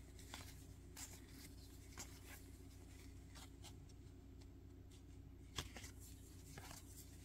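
Baseball trading cards being slid off a hand-held stack one by one: faint, scattered soft clicks and rustles over a low steady room hum, with one slightly louder tick about five and a half seconds in.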